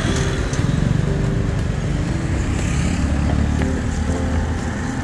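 Motorbike engine running close by, a steady low hum that grows a little stronger in the second half, over street noise.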